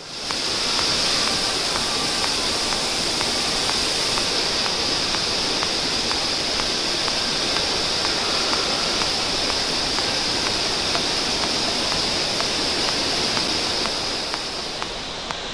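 Mountain stream rushing through a narrow rock gorge: a steady hiss of white water that comes in suddenly and eases slightly near the end.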